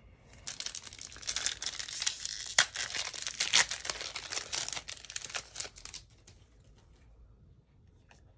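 A 2021 Topps Chrome WWE foil pack wrapper being torn open and crinkled. A dense crackling starts about half a second in and stops at about six seconds, followed by a few faint clicks of cards being handled.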